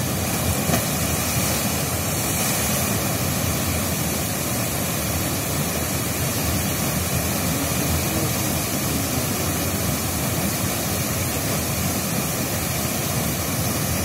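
Muddy floodwater pouring over an eroded earth bank into a churning channel, rushing with a steady, even noise.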